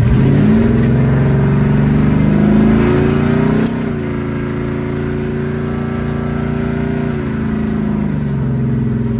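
Car engine accelerating, its pitch rising for about three seconds. It drops suddenly on an upshift with a click, then holds steady while cruising, and falls away as the throttle eases off near the end.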